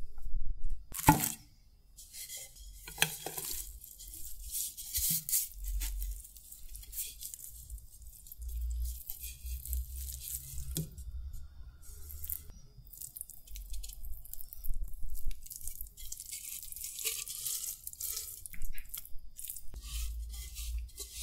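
Close-miked rustling, crinkling and tearing of food and its paper wrapping, in irregular bursts with a few light knocks.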